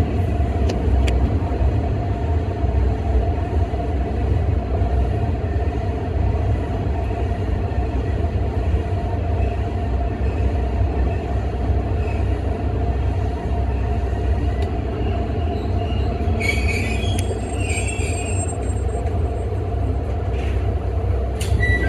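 Kanto Railway 2300 series diesel railcar running at low speed, heard from the cab: a steady low rumble of the engine and wheels on the rails, with a few clicks and a brief high squeal from the wheels a few seconds before the end.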